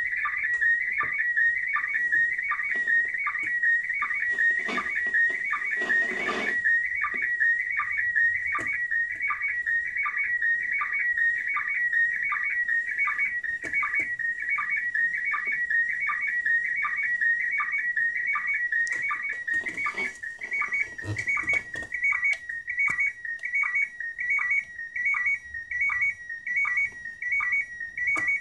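Slow-scan television (SSTV) signal from the ISS heard through the radio receiver's speaker, sent in PD180 mode while an image decodes. It is a high warbling whistle broken by a short lower blip about every three-quarters of a second. There is a brief burst of noise about five seconds in, and after about twenty seconds the signal turns choppy.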